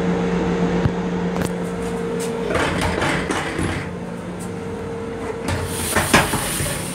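Steady hum of an M7 railcar's onboard equipment, two held tones, with scattered clicks and handling rattles. About six seconds in comes a louder metallic clatter as the restroom door's lever handle is worked.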